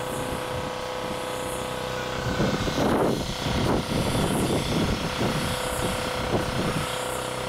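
Machine running with a steady drone and a constant hum. From about two seconds in to near the end, irregular gusts of rushing noise come over it.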